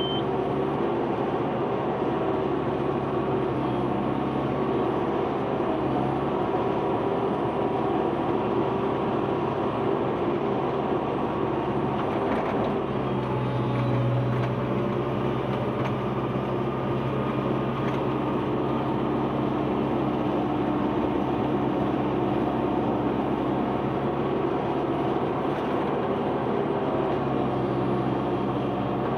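Diesel engine of heavy earthmoving machinery running steadily, its note strengthening and shifting at times as it works.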